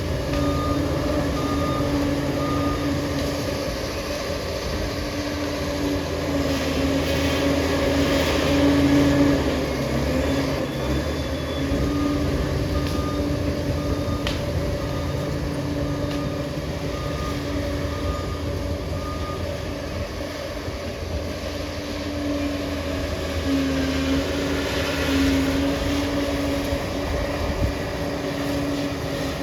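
Liebherr crawler bulldozer's diesel engine running steadily and working under load, with a repeating high beep sounding in stretches.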